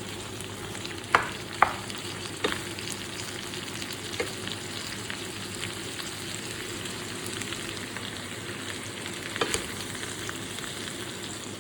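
Cut vegetables frying with a steady sizzle in a pan with sautéed pork, onion and garlic, stirred with a utensil that knocks sharply against the pan a few times, loudest twice just over a second in and again near the end.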